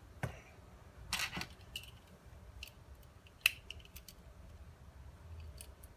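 Small clicks and a brief scratchy rustle of a diode and multimeter test leads being handled, as the next diode is put on the meter's diode test; the sharpest click comes about three and a half seconds in.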